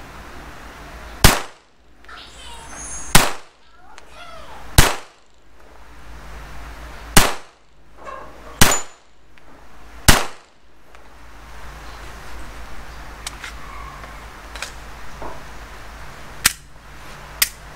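Glock 44 .22 LR pistol firing six single shots at an uneven pace, one and a half to two and a half seconds apart, each a sharp crack. A couple of much lighter clicks come near the end.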